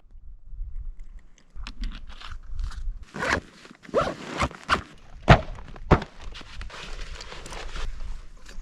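Footsteps of a person walking, a series of irregular steps and thuds, the sharpest ones falling between about three and six seconds in.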